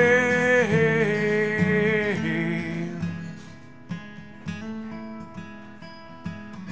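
A man singing a long held note on the word "rain" over strummed acoustic guitar; about three seconds in the voice stops and the acoustic guitar carries on alone with picked, ringing notes.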